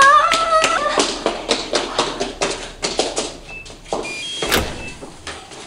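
A woman's drawn-out cry of "Mom!" about a second long, then kitchen clatter at the stove: utensils and dishes clicking and clinking, with a few short ringing clinks.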